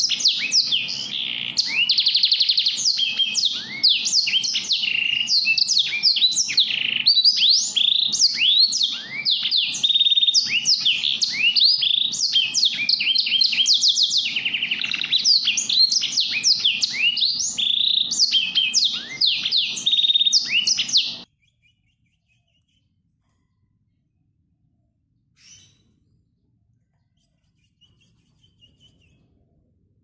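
Songbird singing: a dense, unbroken stream of rapid, high chirps and downward-sweeping trills. It cuts off suddenly about 21 seconds in, leaving only a couple of faint chirps.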